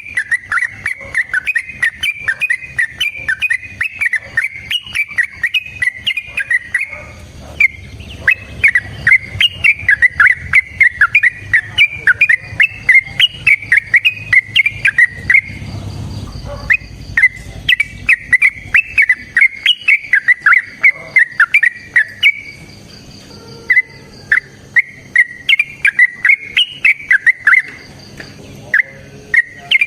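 Yellow-vented bulbul singing in long, fast runs of bubbly, chattering notes, with short pauses between four long phrases.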